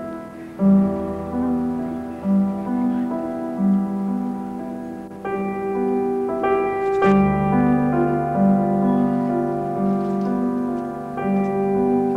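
Background piano music: a slow melody over sustained chords, with the harmony changing every second or so and growing fuller, reaching higher notes, about five seconds in.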